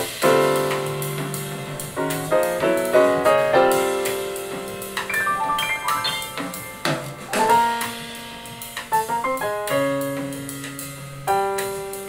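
Piano music with a drum kit, played back through a homemade wooden Bluetooth speaker with two small woofers and a tweeter during a sound test. Notes strike and fade one after another, with light cymbal ticks.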